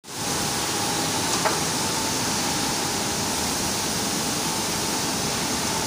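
Steady machinery din of a factory production line, an even hiss-like noise with a faint steady whine through it. A single short knock about a second and a half in.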